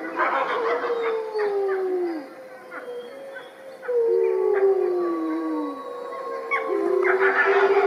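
A wolf pack howling together in chorus: several long howls overlap, each holding its pitch and then sliding down at the end, with higher voices howling above the lower ones.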